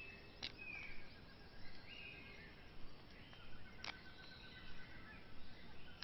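Faint forest ambience: scattered bird calls over a steady background hiss, with two sharp clicks, one about half a second in and one near four seconds.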